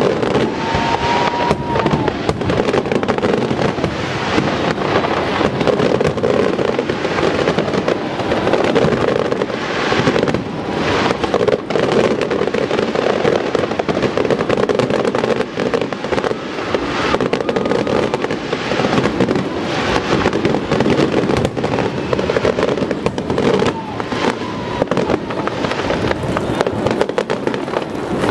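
Fireworks display: aerial shells and low-level effects bursting in a dense, continuous barrage of crackling and pops, with sharper bangs standing out every second or so.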